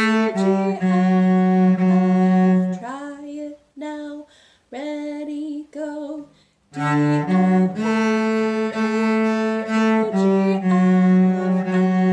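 Solo cello bowed in slow, even notes, playing a beginner's phrase: D, F#, A, A, then A, G, F#, F#. About three seconds in, the low notes give way to a few seconds of quieter, higher short notes. The phrase then starts again on a low D about seven seconds in.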